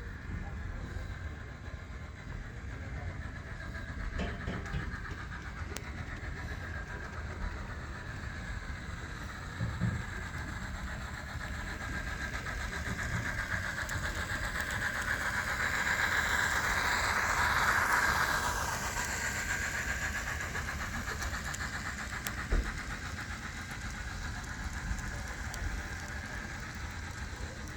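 N scale model train running on the layout, the hum of its motor and wheels on the track growing louder as it passes close about two-thirds of the way through, then fading again. A few light clicks.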